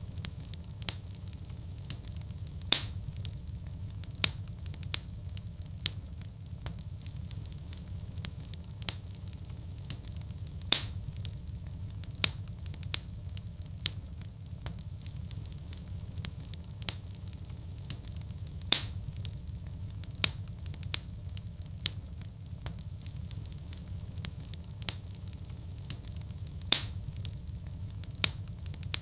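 Fire burning in a fireplace: a steady low rumble of flames with frequent small crackles and a sharp, louder pop about every eight seconds, the same pattern of pops repeating at that spacing.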